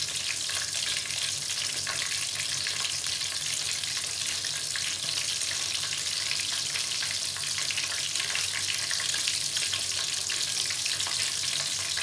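Hot oil sizzling and crackling steadily around flour-coated chicken pieces shallow-frying in a pan.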